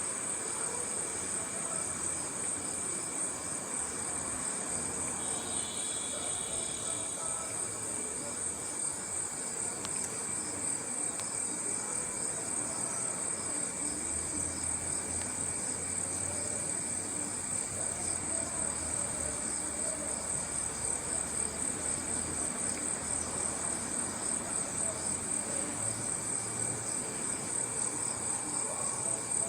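Night chorus of crickets: a steady, high-pitched trill that goes on throughout and pulses in an even rhythm in the second half, with a second, lower insect trill under it and another brief high trill joining about five seconds in.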